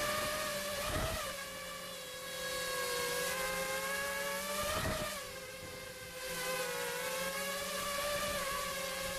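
FPV racing quadcopter's electric motors and propellers whining in flight, the pitch wavering with the throttle and swelling briefly about a second in and again about five seconds in.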